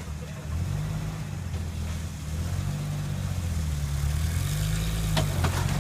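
Off-road vehicle engine revving in about three slow swells, its pitch rising and falling as the driver works the throttle to climb over rock.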